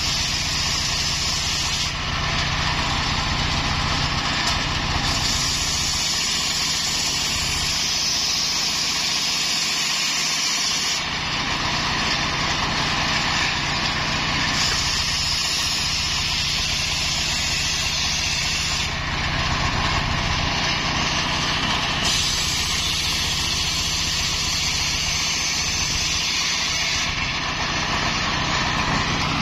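Homemade engine-driven circular saw ripping coconut-palm trunk into planks. The engine runs steadily while the blade spins, and the high sawing noise changes every few seconds as each cut starts and ends.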